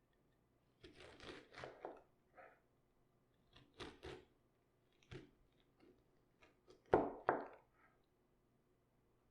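Raw cabbage crunching in short, irregular bouts, the loudest about seven seconds in.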